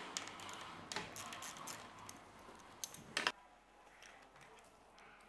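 Faint handling noise from gloved hands working a plastic bracket on a bubble-wrapped scooter stem: scattered small clicks and light rustling, with a sharper click about a second in and two near three seconds in. Almost nothing can be heard after about three seconds.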